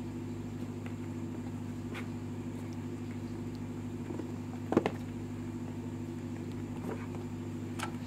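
Kittens pawing and climbing on a cardboard box, giving a few light taps and one sharper knock a little past halfway, over a steady low hum.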